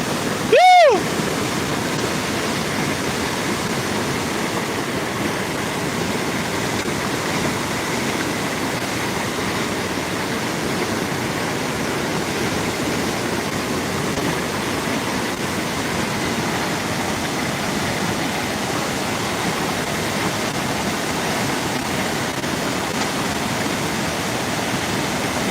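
Floodwater rushing, a steady, even noise of flowing water. A short voiced call just under a second in.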